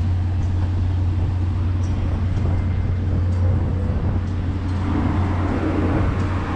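Steady low machinery hum, with a wider haze of background noise getting louder about five seconds in.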